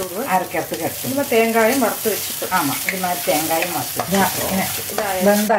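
Wooden spatula stirring and scraping dals, dried red chillies, peppercorns and grated coconut as they roast in coconut oil in a ceramic-coated wok, with a sizzle underneath. Wavering pitched tones rise and fall through the stirring. This is the last stage of dry-roasting the spices for the ground paste, after the coconut has gone in.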